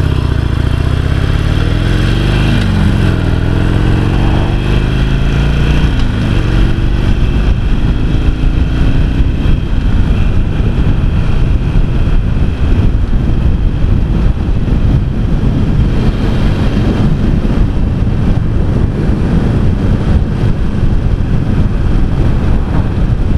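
Harley-Davidson Sportster XL883C's 883 cc air-cooled V-twin pulling away. The engine note rises, drops at an upshift, rises again and drops at a second upshift in the first six seconds, then settles into a steady cruise under a constant rushing noise.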